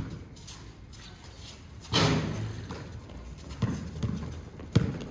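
A basketball bouncing on a hard outdoor court: several separate thuds, the loudest about two seconds in.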